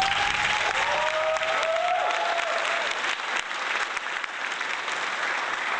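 A crowd applauding and cheering, with a few pitched shouts rising and falling over the clapping in the first couple of seconds.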